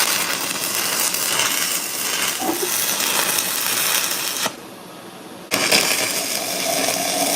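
Stick welding arc crackling and sizzling steadily as a weld is run out. It breaks off about four and a half seconds in and strikes up again about a second later.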